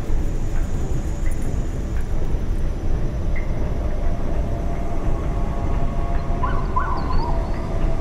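A dense, steady low rumble, with a few short rising chirps about two-thirds of the way through.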